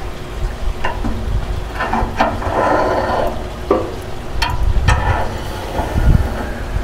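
Metal hooks and hanging rods clinking and scraping inside a smoker as hanging chickens are shifted on their rods, about half a dozen sharp clinks, with a hiss around the middle and a low rumble underneath.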